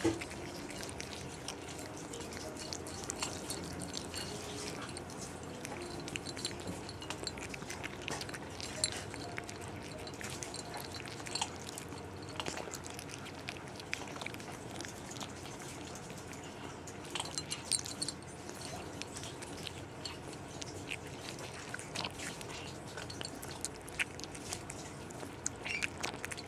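A kitten eating wet cat food from a dish close to the microphone: irregular, wet clicks and smacks of chewing and licking.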